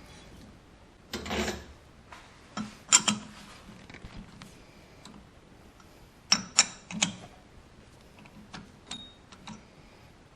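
Metal tools and workpiece being handled and set down: a brief scrape about a second in, then a few sharp metallic clanks in two quick groups and some lighter clicks near the end.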